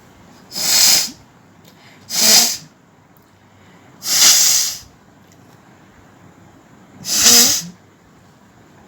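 A woman sneezing four times, each a short, loud, hissing burst, a couple of seconds apart.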